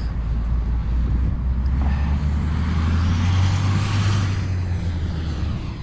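Road traffic: a vehicle passes close by, its tyre hiss building to a peak about three to four seconds in over a low engine rumble, which drops away near the end.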